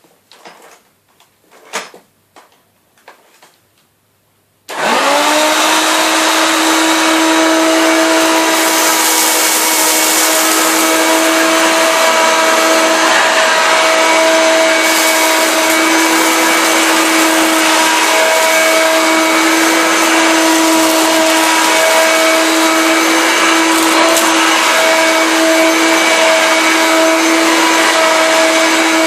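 A few light clicks and knocks, then about five seconds in a Hoover Turbo Power Junior U1222 vacuum cleaner switches on, comes up to speed almost at once and runs with a steady whine, cleaning a rug strewn with dust, paper, cat fur and cat litter.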